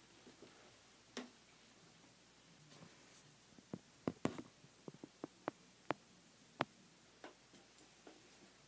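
Quiet room tone broken by sharp light clicks and knocks: one about a second in, then about ten in an irregular cluster through the middle. They come from someone moving about and handling things close to the microphone.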